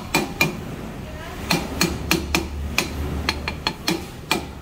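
A hammer striking a car's rear brake drum to knock it loose for removal: about a dozen sharp metallic blows at an uneven pace, each with a brief ring.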